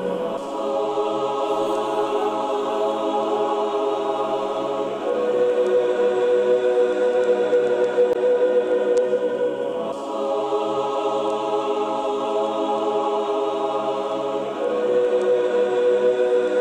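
Slow music of long held, choral-sounding chords that change about every five seconds.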